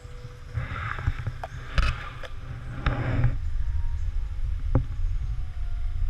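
Handling noise from a handheld camera: an uneven low rumble with a few sharp clicks, and two brief rustles near the start and about halfway through as it brushes through leaves.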